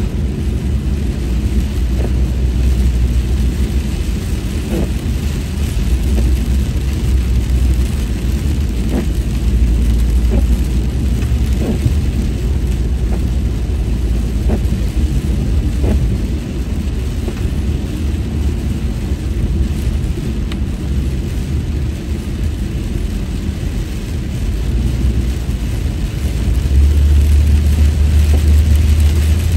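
Steady road noise heard inside a car driving on a rain-soaked freeway: a continuous low rumble with tyre hiss off the wet road. The rumble grows louder near the end.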